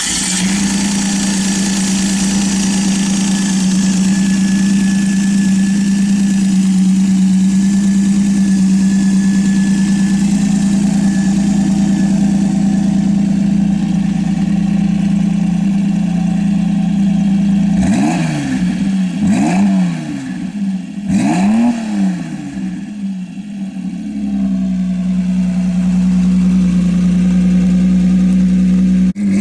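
Carbureted V6 engine of a 1926 Ford Model T hot rod idling steadily, then revved in three quick blips of the throttle a little past the middle before it settles back to idle.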